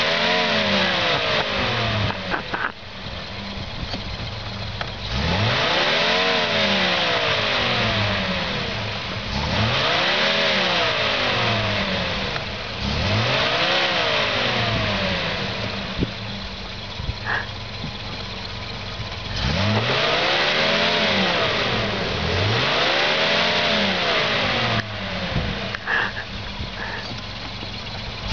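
Volvo C304 6x6 truck's straight-six petrol engine revving up and down repeatedly under load, about six rises and falls, each one with a loud hissing rush, as the truck works through deep snow with its differential locks and six-wheel drive engaged.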